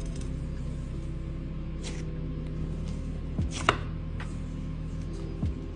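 Slime being squished and mixed by hand, giving a few short sticky clicks and pops, the loudest about three and a half seconds in, over a steady low hum.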